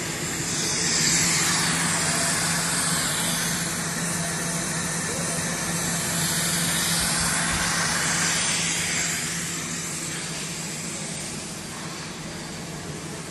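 Running SZ stranding and sheathing line for cable: a constant machine hum under a broad hiss, which grows louder about a second in and eases off after about nine seconds.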